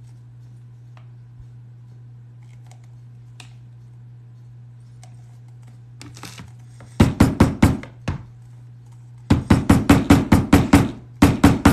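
Rapid runs of hammer blows, about six a second, starting about seven seconds in after a few faint handling clicks: a tool being struck into thick, stiff leather to mark a rivet hole. A steady low hum sits underneath.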